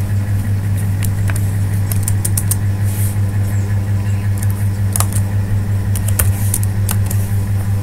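A steady low electrical hum, loud and unchanging, with a dozen or so sparse, sharp clicks of computer input scattered over it as text is edited.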